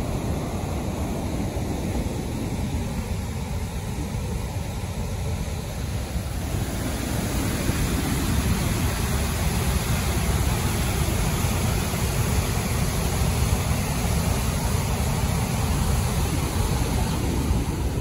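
Waterfall in full monsoon flow: a steady rush of falling and churning water, a little louder from about seven seconds in.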